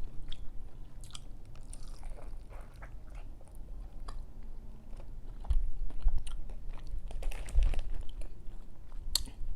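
Someone eating seafood boil close to the microphone: chewing and biting, with many small clicks and crunches and a few louder low bumps about halfway through.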